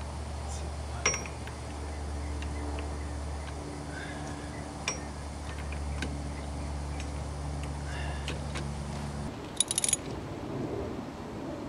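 Metal tools clinking as a three-jaw hub puller is fitted to a splined wire-wheel hub: a few separate clinks, then a quick cluster of clinks just before the end. A steady low hum runs underneath and stops abruptly about nine seconds in.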